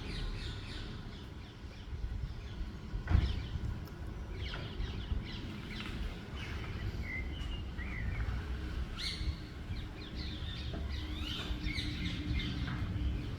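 Small birds chirping and twittering in quick, short calls over a steady low rumble of city traffic, with a single sharp knock about three seconds in.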